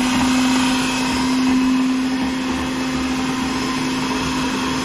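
Electric kitchen blender running steadily at full speed on power from a 12 V-to-220 V inverter, its motor holding an even hum after spinning up.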